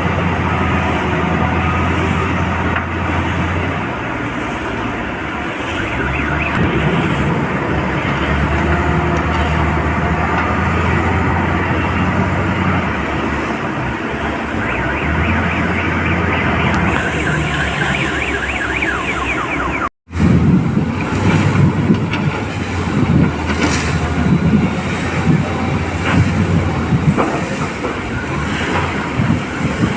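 Heavy diesel excavators and a wheel loader working, engines running steadily under load with mechanical clatter. A high, rapidly repeating squeal builds in the middle. After a sudden cut about two-thirds of the way in, irregular knocks and scrapes come over the engine sound.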